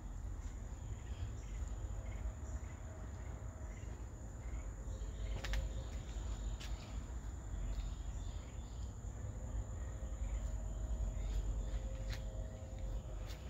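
Steady high-pitched insect chirring, held without a break, over a low rumble. A few sharp clicks stand out, two about halfway through and one near the end.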